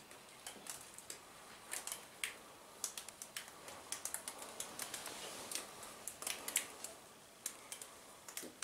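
Water dripping inside a rock cave: faint, irregular ticks and plinks, several a second.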